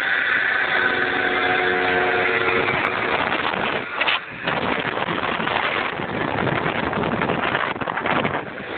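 Moped engine running at riding speed, with heavy wind rushing over the microphone; the noise dips briefly about four seconds in.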